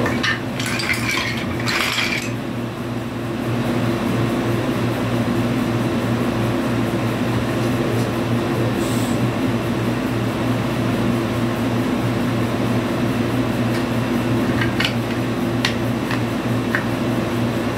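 Wooden toy train track pieces clacking against one another as they are handled and sorted: a burst of clatter in the first two seconds and a few single clicks near the end. Under them runs the steady hum of a portable air conditioner.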